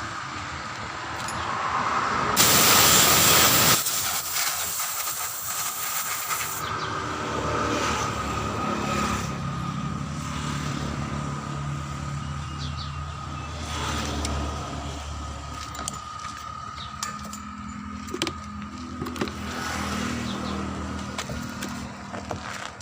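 Compressed air hissing in a loud blast of about a second and a half, then a weaker hiss for about three seconds more, over steady workshop machine hum and a few clicks.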